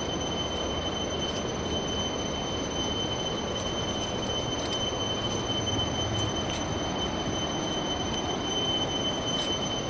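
A river rushing steadily, with insects making a continuous high-pitched tone over it.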